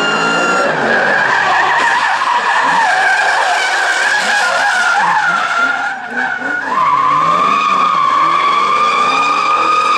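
Drift cars sliding sideways: engines revving hard with a wavering pitch while the tyres squeal without a break. From about seven seconds in, one steady high tyre squeal holds.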